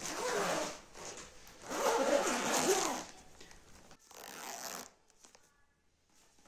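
Zipper on a clear plastic blanket storage bag being pulled shut in three strokes, the second the longest and loudest, the third shorter and quieter about four seconds in.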